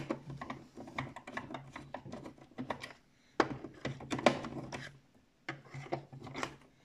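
Irregular clicks, taps and rattles of an RC battle tank's plastic hull and tracks being handled, with short pauses between bursts.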